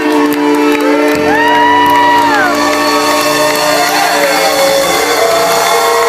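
Live band music with held chords and a bass line coming in about a second in, and a concert crowd cheering and whooping over it.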